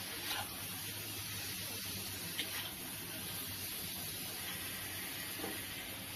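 Steady sizzling hiss from the wok, with a few light clinks as the spatula scoops food out of the wok into a steel bowl.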